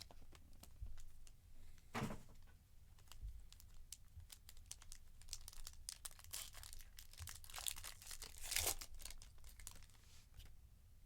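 Plastic wrapping crinkling and tearing, with many small clicks and rustles, as a sealed box of trading cards is opened and handled; the loudest rustles come about two seconds in and again near the end.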